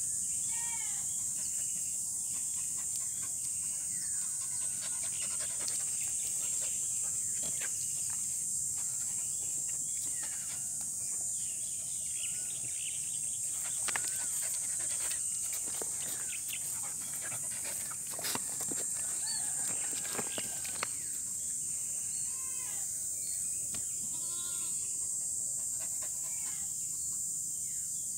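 Steady high-pitched drone of insects, with birds chirping and calling throughout and a few short sharp sounds about halfway through.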